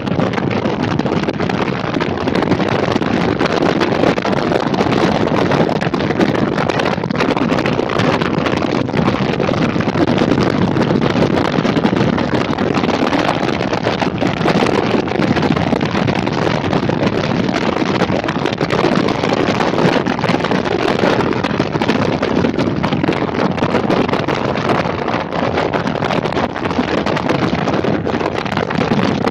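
Wind rushing steadily over the microphone of a camera mounted on a motorcycle riding at road speed, with the bike and tyre noise running underneath.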